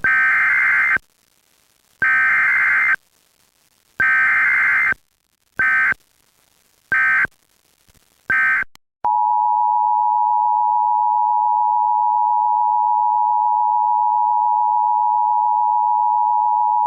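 Emergency Alert System tones. First come three loud one-second bursts of the high, buzzing SAME data screech, a second apart, then three shorter bursts. Then the steady two-tone attention signal sounds for about eight seconds and cuts off at the end.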